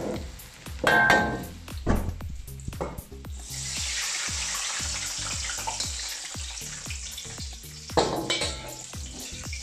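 Battered chicken strips deep-frying in a wok of hot oil, with sharp metal clanks of a steel ladle and strainer against the wok about one and two seconds in and again near the end. From about three seconds in a strong sizzling hiss takes over as the oil and chicken are moved out of the wok.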